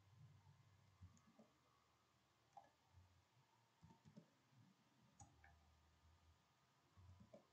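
Near silence broken by a dozen or so faint, irregular clicks from computer input: keys being typed and a mouse being clicked while a value is entered into a console program.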